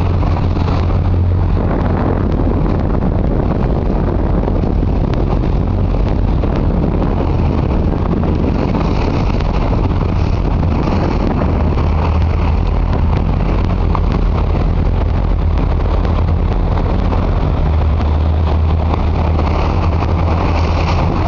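Motorboat engine running steadily: a loud, even, low drone with a noisy rush over it.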